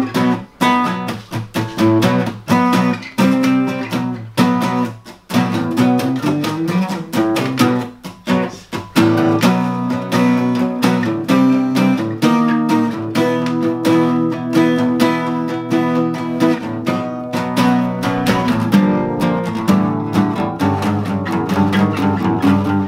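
Guitar being played: quick, repeated strokes of chords and picked notes. It breaks off briefly about five and eight seconds in, then plays on without pause.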